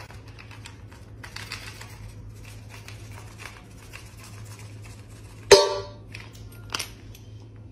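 Dry dog kibble rattling as it is tipped from a plastic scoop into a stainless steel bowl, then a single sharp metallic clang with a brief ring about five and a half seconds in as the steel bowl is knocked, and a smaller clink a second later. A low steady hum runs underneath.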